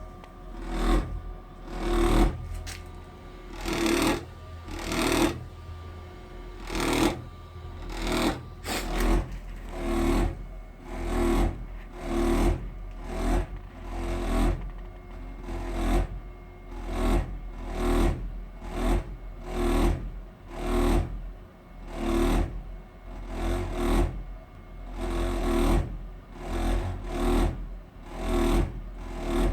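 Gas boiler making a vibrating noise: a buzzing throb that pulses about once a second over a steady low hum.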